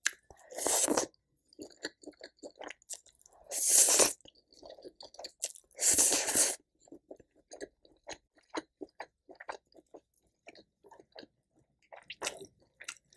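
Close-miked eating sounds of a person eating noodles and sausage: three louder noisy bites or slurps about a second, four and six seconds in, followed by a long run of soft, wet chewing clicks.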